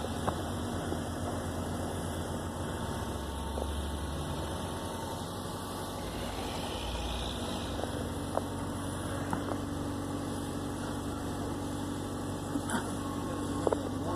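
Car engine idling steadily, with a few short sharp clicks, one just after the start and a couple near the end.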